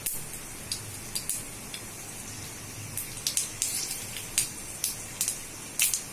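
Mustard seeds and urad dal sizzling in hot oil in a kadai, with sharp spluttering pops that come sparsely at first and more often from about halfway through as the mustard seeds start to burst.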